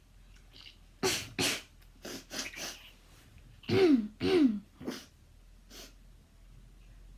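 A person's repeated habit cough: a run of short, sharp coughs, then two loud honking coughs that fall in pitch about half a second apart, then a couple of fainter ones.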